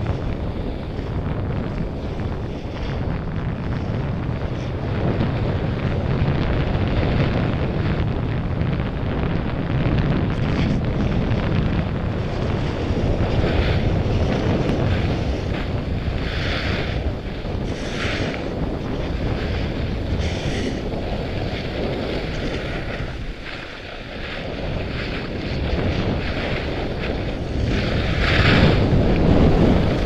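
Wind rushing over a helmet camera's microphone while moving down a snowy slope: a steady rumbling noise with a few short surges of higher hiss in the second half, the loudest near the end.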